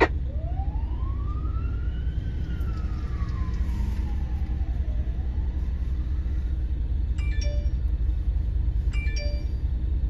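An emergency vehicle siren in a slow wail, its pitch rising, falling and starting to rise again, over a steady low rumble. From about seven seconds in, a short electronic chime of a few stepped tones sounds twice, about two seconds apart.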